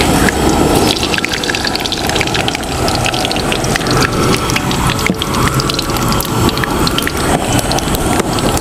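Mustard seeds sizzling in hot coconut oil in a wide kadai, a steady hiss with many quick scattered pops and crackles as the seeds begin to splutter.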